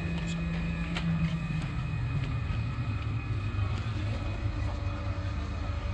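Steady low drone of a car ferry's engines on the vehicle deck. A higher hum in it fades out about two seconds in, leaving a lower rumble, with a faint click about a second in.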